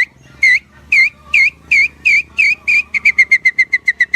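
A man whistling an imitation of a birdsong: a series of short swooping notes, each dipping then rising, about three a second, that speed up into a rapid trill about three seconds in.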